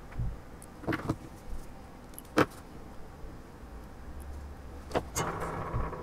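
Sparse sharp clicks and light taps of small hand tools being handled while a circuit board is assembled. A pair of clicks comes about a second in, the sharpest about two and a half seconds in, and another near the end.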